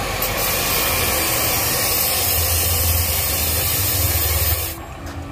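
Cut-off saw running through a cut with a loud, steady hissing whir. The sound stops abruptly about a second before the end.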